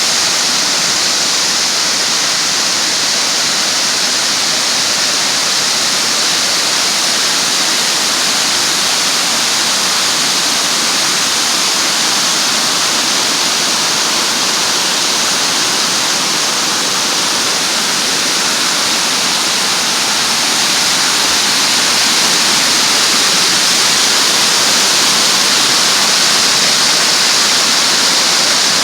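Steady rushing of falling water, a hissing splash with little low rumble, growing slightly louder about two-thirds of the way through.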